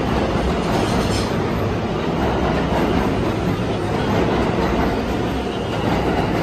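New York City subway train running past the platform at speed, with a steady loud rumble of steel wheels on the rails.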